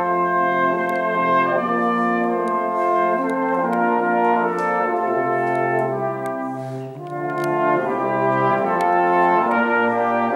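Cornet solo with full brass band accompaniment: the soloist plays a sustained melody over held chords from the band. The music eases for a moment about two-thirds of the way in, then swells again.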